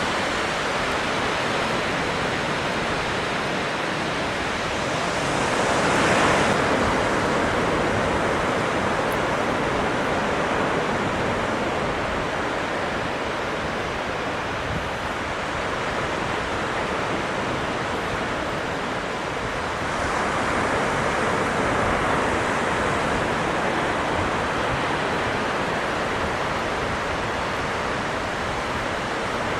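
Surf washing onto a beach under a strong wind: a steady rush of noise that swells as a wave breaks about six seconds in and again about twenty seconds in.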